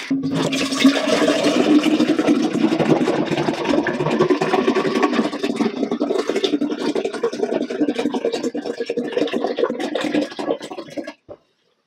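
A drink pouring from an upside-down 1.5 L plastic bottle into a tall glass in one steady stream. The pour stops suddenly about eleven seconds in.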